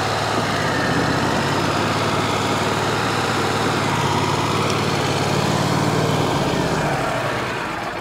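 Band sawmill's engine running steadily, easing off slightly near the end.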